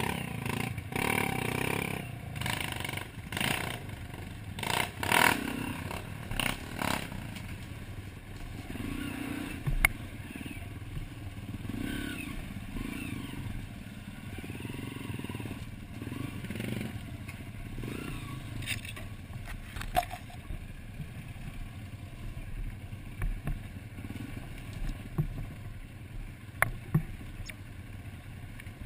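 Dirt bike engines running and blipping at low speed on a rocky trail climb, with clattering and scraping against rocks and brush, heaviest in the first several seconds, and scattered sharp knocks after that.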